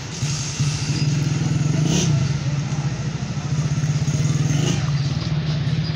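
A vehicle engine running close by with a fast, even putter, coming in suddenly just after the start and then holding steady. There is a short sharp knock about two seconds in.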